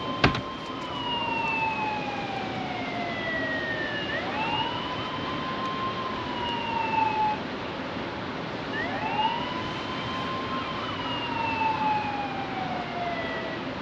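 A siren wailing, each cycle sweeping up quickly and then sliding slowly down, repeating about every four and a half seconds over a steady rushing noise. A single sharp click sounds about a quarter second in.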